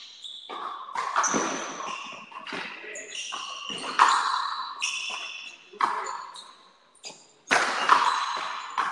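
Frontenis rally: the rubber ball cracking off strung rackets and the fronton's concrete wall about once a second, each hit sharp with a ringing echo.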